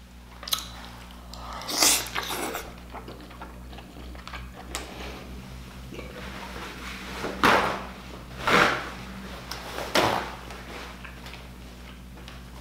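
Close-miked eating of king crab legs: a handful of short, breathy mouth-and-nose sounds, the loudest about two, seven and a half, eight and a half and ten seconds in, over faint handling noise and a low steady hum.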